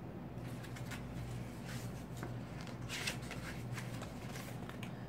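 Pages of an art book being leafed through and handled: a run of quick papery rustles and flicks, busiest about three seconds in.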